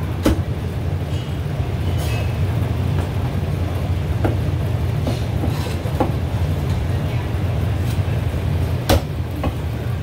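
Heavy cleaver chopping roast goose on a thick wooden chopping block: a few sharp, irregularly spaced chops, the loudest about nine seconds in, over a steady low rumble.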